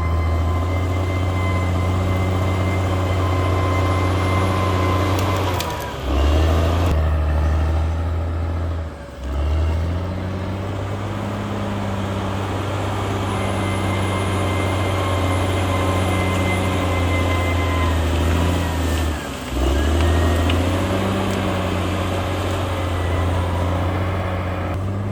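Diesel engine of a Caterpillar D6R XL bulldozer running under load, with a deep, steady note that dips briefly and picks back up three times, about 6, 9 and 19 seconds in. A faint steady whine rides above it.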